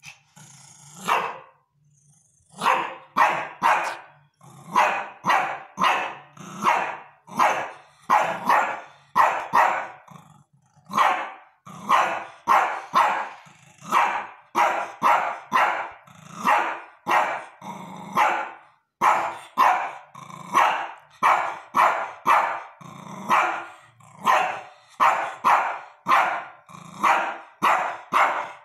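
Shih Tzu barking over and over: short, sharp barks, often in quick runs of two or three, about one and a half barks a second without a real pause.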